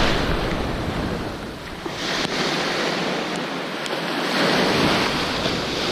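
Ocean surf breaking and washing up the beach, swelling and ebbing, with wind buffeting the microphone.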